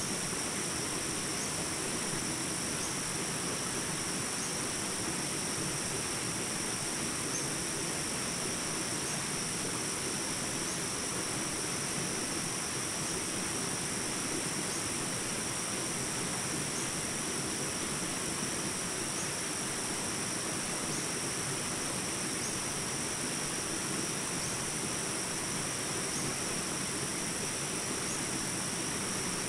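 Steady, unbroken high-pitched insect chorus over an even background hiss.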